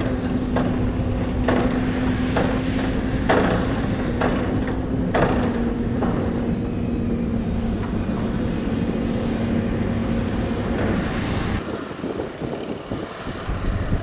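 Diesel engines of hydraulic excavators running with a steady drone, with sharp knocks about once a second for the first five seconds or so. About eleven and a half seconds in, the sound changes and the low rumble drops away.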